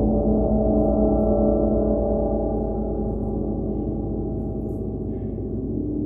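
Large handmade gongs played together, making a dense, sustained wash of many overlapping low tones that fades slowly.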